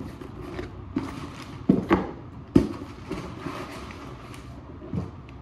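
Cardboard shipping box being handled and opened by hand: papery rustling and scraping of the flaps, broken by several sharp knocks and taps against the box and table.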